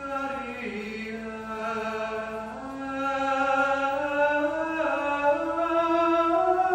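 A single man's voice singing Gregorian chant, holding long notes. The line slides down early on, holds, then steps up twice to higher notes.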